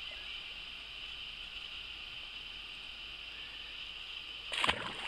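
A carp released into lake water with one short splash about four and a half seconds in, over a steady high hiss.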